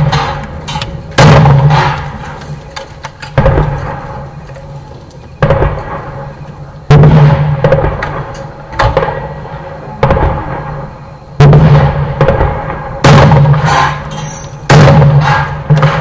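Gunshots from a long gun fired one after another, about eight in all, roughly one every one and a half to two seconds, each sharp crack trailing off in a ringing echo. Lighter clicks and knocks sound between the shots.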